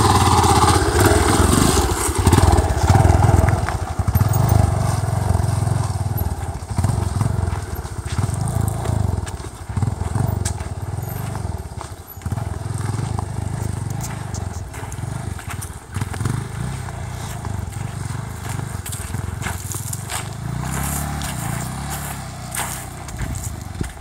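Dirt bike engine pulling away and riding off along a dirt trail. The revs rise and fall with the throttle, and the engine grows fainter as it goes.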